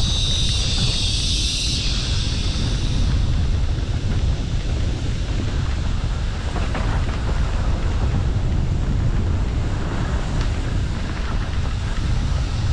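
Wind buffeting a helmet-mounted camera's microphone over the steady low rumble of a downhill mountain bike running fast down a dirt trail. There is a brief hiss near the start.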